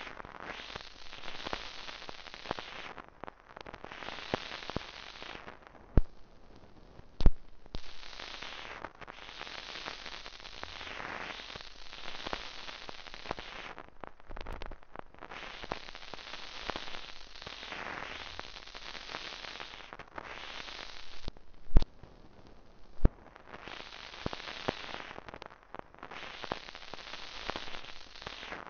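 Surface noise of an old 78 rpm record: a steady crackling hiss that swells and fades every few seconds, broken by four loud pops, two about a second apart near a fifth of the way in and two more about a second apart around three-quarters through.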